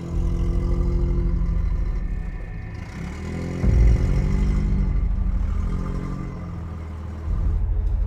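An old car's engine running as the car drives along, its pitch rising and falling in the middle. About three and a half seconds in there is a heavy low thump, the loudest sound here.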